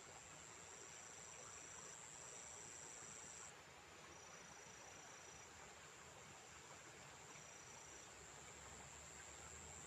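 Faint insects singing: a steady high-pitched trill that stops about three and a half seconds in, and a second, slightly lower trill that comes and goes in short phrases, over a faint hiss.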